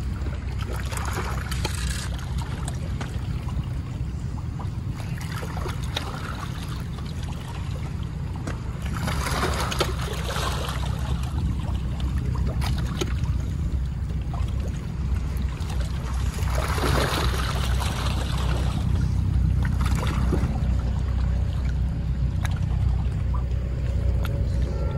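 A steady low rumble with water washing or splashing that swells up three times, about a second in, around ten seconds in and around seventeen seconds in.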